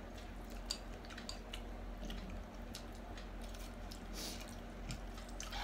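Quiet eating of noodles: chewing and slurping, with scattered small clicks of forks against glass bowls.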